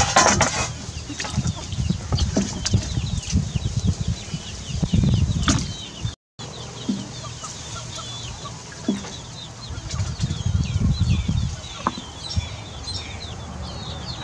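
Metal ladle clinking and scraping against an aluminium cooking pot as a braised pig leg is lifted out of its broth onto a wooden chopping board, with a loud clatter at the start and scattered sharp clinks after. Irregular low rumbling bursts run underneath, and birds chirp repeatedly in the background.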